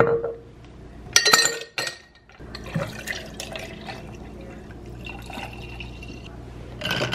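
A few sharp clinks against a glass mason jar. Then coffee, and after it milk, is poured steadily into the jar over ice.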